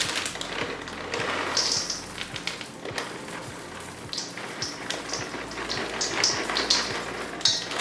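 Milk chocolate chips being poured and scooped, a rapid pattering of many small hard pieces clicking against a container.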